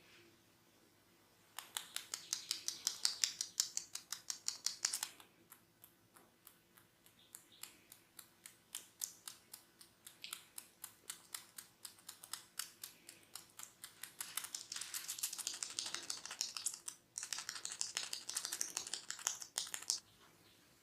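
Hair cracking during a head massage: fingers snapping and rubbing strands of hair against the scalp, making rapid clicks. The clicks come about eight a second at first, thin out to a few a second in the middle, and come thick again near the end.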